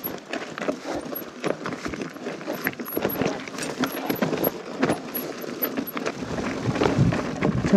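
Niner mountain bike rattling over a rough, technical trail on a descent, with many irregular knocks and clicks.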